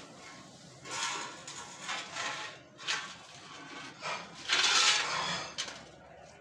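A broom swept across brick paving in separate short strokes, pushing leaves toward a metal dustpan, with a longer, louder stroke a little past the middle.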